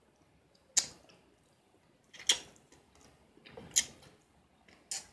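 Close-miked mouth sounds of someone chewing fried chicken: four short, sharp clicks about a second and a half apart.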